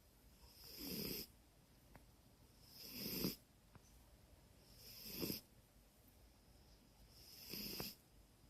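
Domestic cat snoring in its sleep: four snores about two and a half seconds apart, each swelling and then cutting off sharply.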